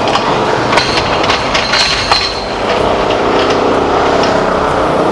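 Metal clanks and knocks of a steel lighting bar being set onto the top of a lighting stand and fitted by hand. About three seconds in, a steady drone joins and carries on.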